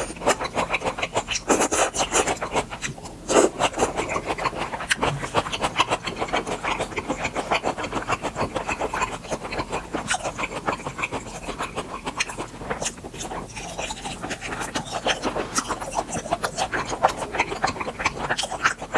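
Close-miked chewing of grilled beef offal: a dense, continuous run of quick mouth clicks as the chewy meat is worked between the teeth.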